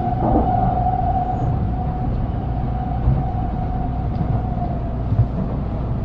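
Inside an N700A Shinkansen car while the train runs: a steady low rumble with a faint steady whine that fades away toward the end.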